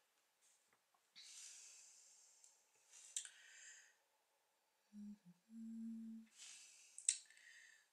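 Quiet breathing close to the microphone: a few soft exhales, with a short closed-mouth hum ("mm") about five seconds in.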